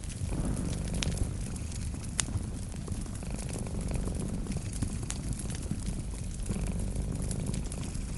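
A cat purring steadily in a low, fast rumble, over a wood fire crackling with sharp pops now and then, the sharpest about two seconds in.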